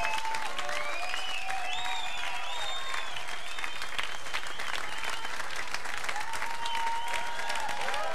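Studio audience applauding steadily, with cheers and whoops rising and falling over the clapping.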